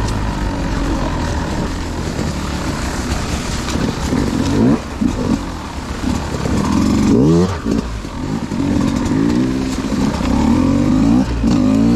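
Beta 200RR two-stroke dirt bike engine under a rider, the throttle worked on and off so the pitch rises and falls over and over, with a quick series of rising revs in the second half.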